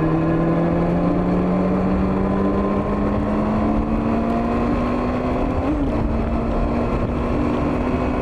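Honda CB400 motorcycle engine running under way, its pitch rising slowly and steadily as the bike gently gains speed, over low wind rush.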